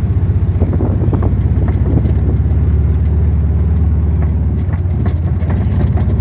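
Motor vehicle engine running steadily at a low pitch while driving, with scattered knocks and rattles.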